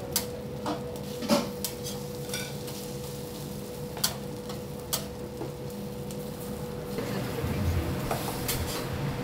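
Metal spatula scraping and clacking on a flat-top griddle as food fries with a light sizzle, with several sharp clicks in the first five seconds. A steady hum runs underneath.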